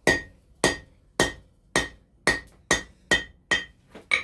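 Blacksmith's hammer striking steel on the anvil about eight times in a steady rhythm, each blow with a short bright metallic ring, the strikes coming a little faster near the end: cutting off a forged pin at length.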